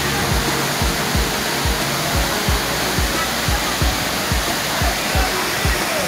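Waterfall plunging into a pool, a steady rushing hiss, mixed with music that has a steady low thumping beat, about three to four beats a second.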